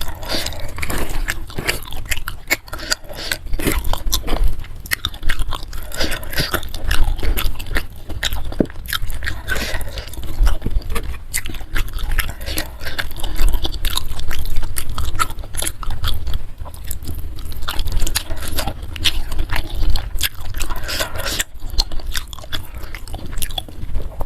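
Close-miked chewing and biting of crunchy food, a dense run of sharp crunches.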